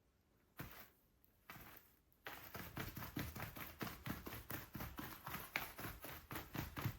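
A few separate light knocks, then from about two seconds in a quick, continuous series of short taps or footsteps, roughly seven a second.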